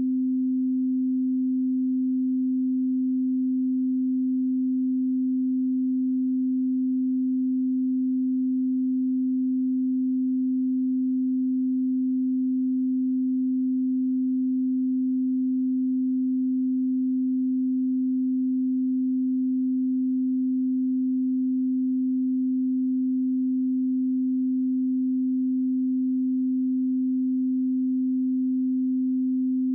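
Steady 258 Hz pure sine-wave test tone, a single low hum-like pitch held unchanged at a constant level.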